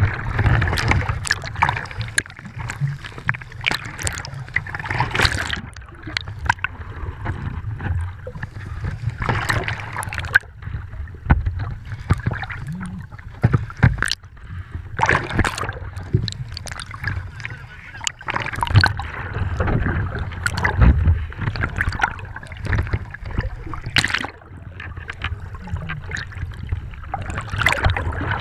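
Water sloshing and splashing over a GoPro's housing as it dips in and out of the surface, a muffled, irregular churn of gurgles and sudden splashes.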